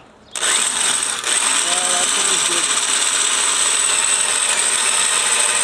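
Old electric drill starting up and running steadily under load with a high whine, boring a large 7/16-inch twist bit into the end grain of a wooden beam.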